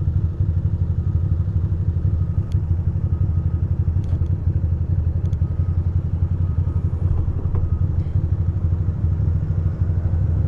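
2006 Ducati Monster 620's air-cooled L-twin idling steadily at a standstill, with an even, fast pulse.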